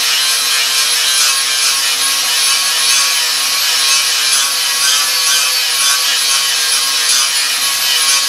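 Angle grinder grinding the steel front fender brace of a Model A truck, running steadily under load the whole time. The brace is being ground back to give the front tire clearance.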